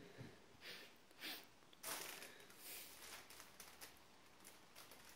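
Near silence in a quiet room, with a few soft brief rustles in the first couple of seconds, the loudest about two seconds in, and faint light ticks after.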